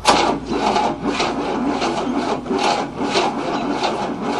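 A 1967 Cadillac's 429 V8 being turned over by its starter motor, cranking slowly with an even rhythm of about two strokes a second and never catching. The owner suspects the ignition timing is advanced; the crank is also too slow to start it.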